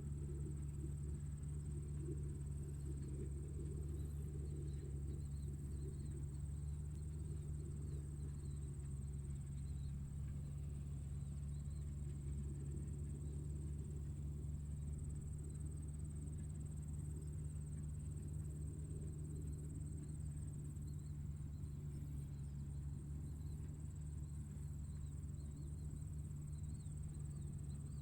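Tractor engine running steadily at a constant low drone, with a steady high-pitched whine above it.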